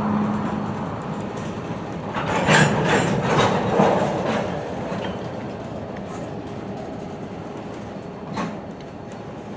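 Freight cars (covered hoppers and tank cars) rolling slowly through the yard, with a cluster of wheel clacks and knocks over the rail joints about two to four seconds in and one more clack near the end. A steady engine hum fades out in the first second.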